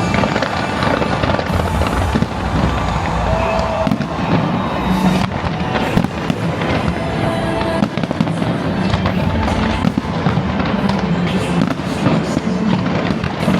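Fireworks display going off without pause: many rapid, overlapping bangs and crackles, with music underneath.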